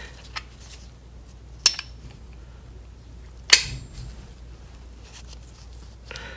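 Two sharp metallic clinks about two seconds apart, with a fainter tick before them, as a flat metal wrench is fitted to and knocks against the metal body and screen screw of a PMC AP-3 spray foam gun.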